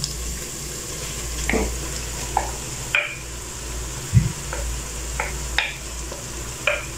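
Raw minced meat tipped into hot oil and fried onions in a nonstick pot, frying with a steady sizzle. A wooden spoon knocks and scrapes the last of the mince off the bowl in a string of short taps, with one duller thump a little after four seconds in.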